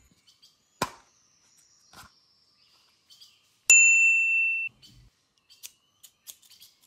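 A bright ding sound effect about halfway in: one steady, clear tone that starts suddenly and cuts off after about a second. A sharp click comes before it, and a few light clicks from handling the toys come near the end.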